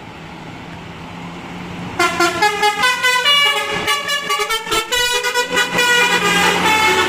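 A bus's musical 'telolet' air horn cuts in about two seconds in and plays a quick run of changing notes, over the steady hum of the bus engine.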